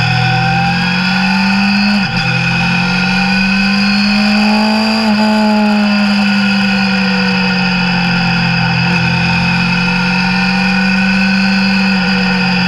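Suzuki Bandit 600 motorcycle's inline-four engine running under way at steady cruising revs. Its note dips briefly about two seconds in, climbs gently, then slowly eases off.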